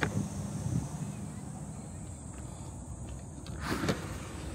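A small click at the start, then a brief scraping swish about three and a half seconds in as a plastic slide-out tray is pulled from under a car's dashboard.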